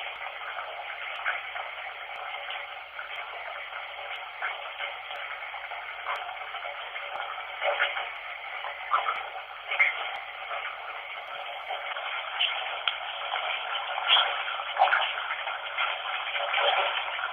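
Steady rush of running water used as background noise for spirit-voice recording, thin and narrow in tone as if filtered, with small crackles and spikes here and there.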